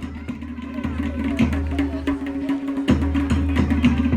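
Music with a quick beat of drums and sharp clicking percussion over a steady low bass line.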